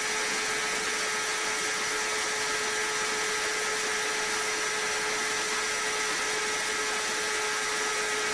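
Kawasaki sport bike engine held at high revs at speed: a steady whine that does not rise or fall, over the rush of wind on the onboard microphone.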